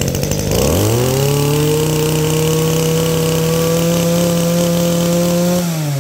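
Kyoritsu Echo brush cutter's small engine revved up from idle to full throttle about half a second in, held steady at high revs for about five seconds, then let back down toward idle near the end.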